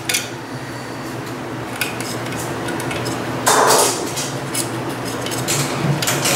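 Small clicks and rattles of a disassembled plastic spincast fishing reel being handled and fitted back together by hand, with one louder handling noise about three and a half seconds in.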